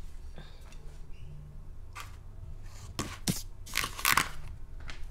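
A metal fork scraping and knocking lobster and shrimp shells and scraps into a plastic takeout bowl: a few short scrapes and clatters, the loudest about four seconds in.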